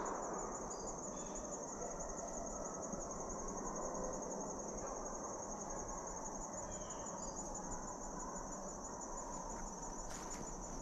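Insects trilling steadily in a high, fine pulsing chorus. The echo of a distant gunshot dies away in the first moment.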